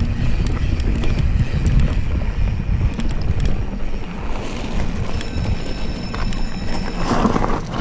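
Wind buffeting the camera microphone on a mountain bike coasting downhill, with the knobby tyres rolling over dirt and then gravel, and a few light ticks.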